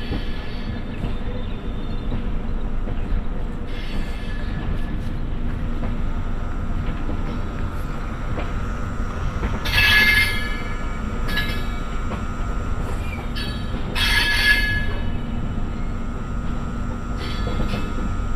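Passenger train's coach wheels running over the rails, heard from an open coach door, with a steady rumble. Two loud bursts of high-pitched wheel squeal come about ten and fourteen seconds in, as the train takes a curve.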